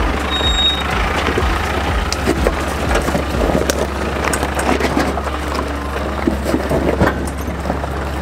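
Nissan Navara ute crawling down a steep, loose shale track: rocks crunching and popping under the tyres over a steady low vehicle rumble. A low beat of background music thumps about twice a second for the first few seconds.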